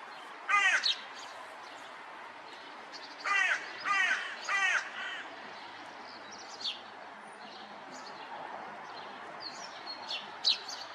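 A crow cawing: one caw, then a quick run of three about three seconds in. A few short, high chirps follow later.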